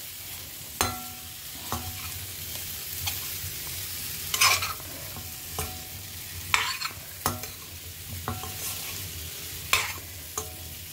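Metal spatula stirring cauliflower florets in spice masala in a stainless steel kadai, over a steady sizzle of frying. The spatula scrapes and knocks against the pan at irregular intervals, about once a second, some knocks making the steel pan ring briefly.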